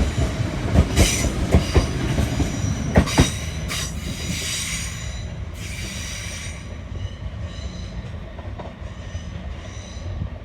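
Train wheels squealing in several high-pitched bursts over a rapid clatter of wheels on rail joints, growing quieter after about six seconds as the squeals fade.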